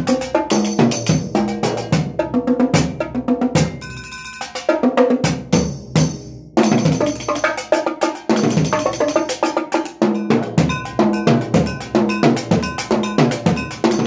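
Solo multi-percussion performance played with sticks: fast, dense strokes across toms, small drums and ringing metal percussion. About four seconds in the playing thins out to a few strokes with metal tones ringing on, then dense playing resumes with a loud stroke about six and a half seconds in.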